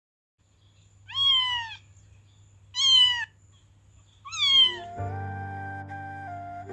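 A cat meowing three times, each call about half a second long with a bending pitch. Background music with steady held notes comes in about five seconds in.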